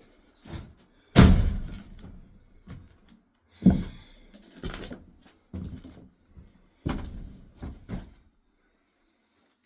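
Irregular knocks and thuds, about seven in eight seconds, the loudest a little over a second in.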